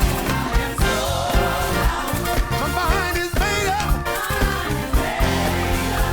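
Live gospel worship music with singing over a steady drum beat of about two beats a second.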